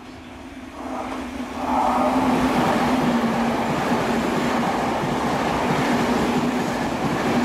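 Toei Asakusa Line electric train passing at speed: wheels rumbling on the rails under a steady low hum. It builds about one second in, grows loud near two seconds as the cars pass close, and holds.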